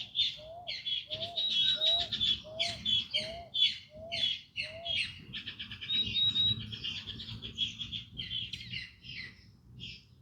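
Several songbirds singing: dense, rapid chirps and trills, with a short, lower, rising-and-falling note repeated about twice a second through the first half before it stops.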